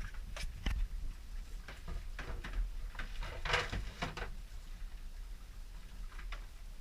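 Irregular light knocks and taps on a small fishing boat, with a louder cluster about halfway through, over a steady low rumble of wind and water.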